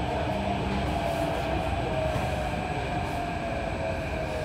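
Metro train heard from on board as it runs alongside a station platform: a steady running rumble with a motor whine that falls slowly in pitch as the train slows.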